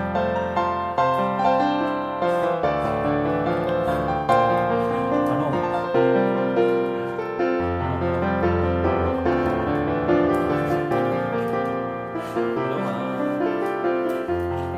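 Background piano music: a melody of struck notes over held bass notes.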